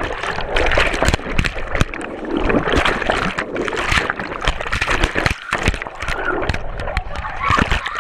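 Water sloshing and splashing inside a rolling zorb ball, with frequent knocks and rubbing against its plastic wall.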